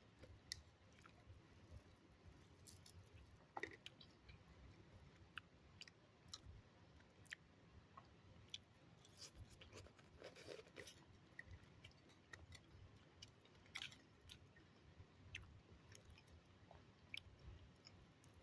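Close-up chewing of a homemade omelette, with scattered soft, irregular clicks and small wet crackles from the mouth.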